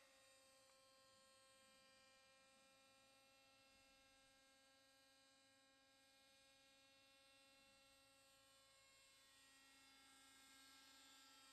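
Near silence: a faint, steady electrical-sounding hum made of several even pitches.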